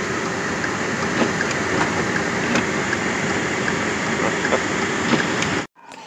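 Blizzard wind blowing hard around a stopped vehicle: a steady rushing noise with a few light ticks, cutting off suddenly near the end.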